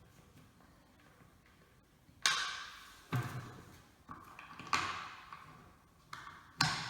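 About six separate knocks and taps of plastic vacuum-cleaner parts being handled while fitting the wheels with nuts and bolts. Each knock rings on briefly with an echo.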